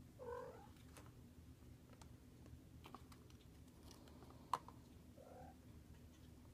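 A kitten gives a short meow at the start and a fainter one about five seconds in, between soft clicks of the ball and paws on a plastic ball-track toy, with one sharp plastic tap about four and a half seconds in.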